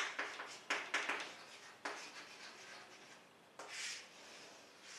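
Scratchy writing strokes, several short quick ones in a row and then a longer stroke, as words are written out by hand.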